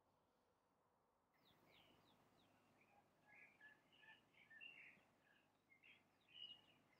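Near silence with faint birdsong in the background: a string of short chirps and quick falling notes starting about a second in, busiest in the second half.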